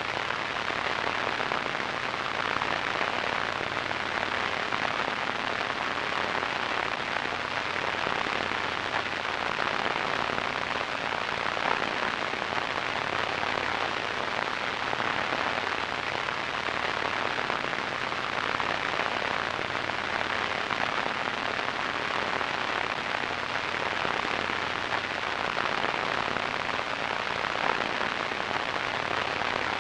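Radio static: a steady, unchanging hiss, strongest in the middle pitches, with little deep rumble.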